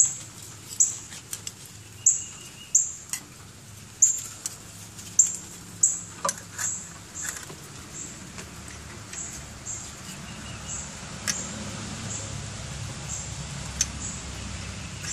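Crankshaft timing belt pulley, guide and damper being handled and fitted onto the nose of a Ford Focus 2.0 SOHC crankshaft: a run of sharp metallic clicks and taps, one or two a second, growing fainter and sparser after about eight seconds.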